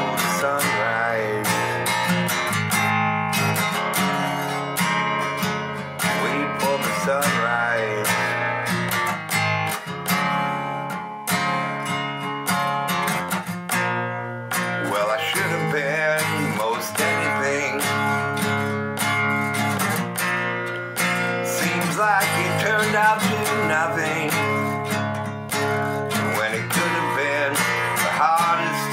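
Acoustic guitar strummed steadily through an instrumental passage of a song, with no singing.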